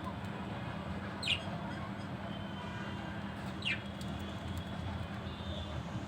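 Budgerigars giving two short, high chirps that fall in pitch, one about a second in and one past the middle, over a steady low hum.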